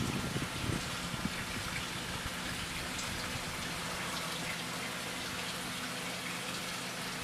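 Steady rush of running water with a faint low hum underneath, typical of water flow and pumps in koi holding tanks. A louder low rumble fades out about a second in.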